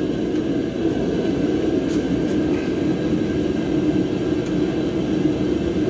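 A steady mechanical drone, like a large fan or other running machine, with a faint click about two seconds in.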